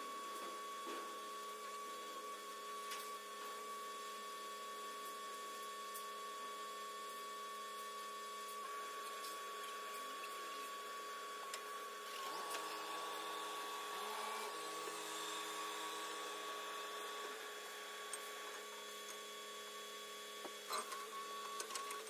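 Faint steady mechanical whine from a truck-mounted boom crane's hydraulics. Its lower tones shift for a couple of seconds about twelve seconds in, while the crane is being worked; a few clicks come near the end.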